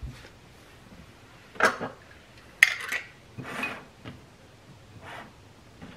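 Kitchen utensils handled on a countertop: a handful of short, separate knocks and clicks, the sharpest about two and a half seconds in, as a handheld lime squeezer is picked up and readied.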